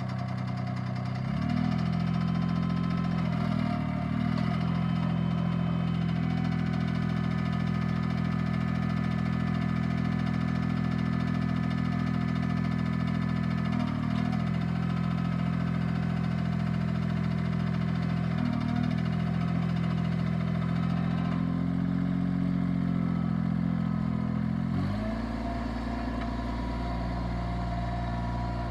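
Mahindra eMax 25 compact tractor's diesel engine running at raised revs, its pitch rising about a second in and dipping briefly a few times, then dropping to a lower, slower running speed near the end.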